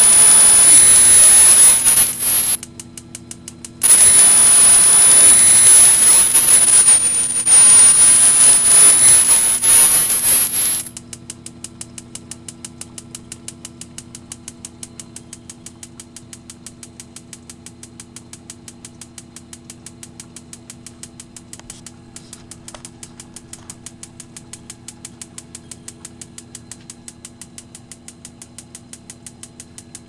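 Electronic spark igniter on an HHO burner clicking steadily at about four sparks a second, with no flame catching: the owner puts this down to a leak in the tank cap that keeps enough gas from reaching the nozzle. In the first ten seconds a loud hiss with a high-pitched whistle on top comes twice and covers the clicks, and a steady hum runs underneath.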